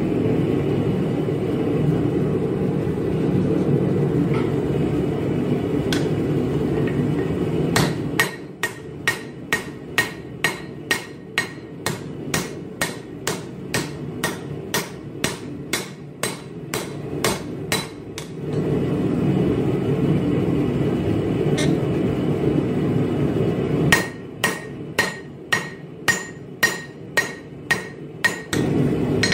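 Hand hammer striking a hot 1084/15N20 laminated steel billet on an anvil in two runs of regular blows, about two a second, each with a bright metallic ring. The first run is about ten seconds long; the second, near the end, is shorter and quicker. Before, between and after the runs there is a steady low rushing noise.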